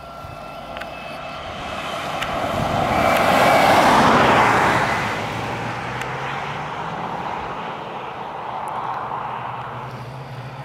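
A Toyota pickup drives past close by. Its engine and tyre noise swells to a peak about four seconds in, then fades. Afterwards a steady, low engine hum from further off continues, rising slightly near the end.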